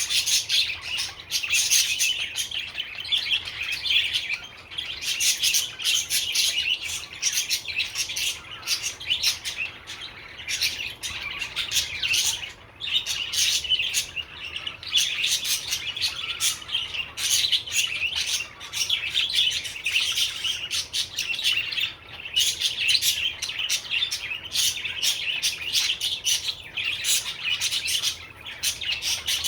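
Budgerigar chattering and warbling: a fast, unbroken run of high chirps and twitters, pausing briefly twice.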